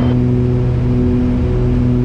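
Steady cabin drone of a Piper Aerostar 700 flying on one engine: the left piston engine running at 33 inches of manifold pressure and 2,400 RPM while the dead right engine's propeller is feathered. The sound is a constant hum made of several steady tones.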